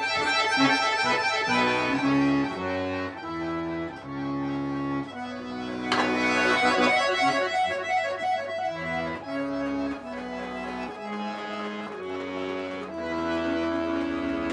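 Chromatic button accordion playing solo: held low chords that change every second or so under quick runs of high notes, with a sharp click about six seconds in.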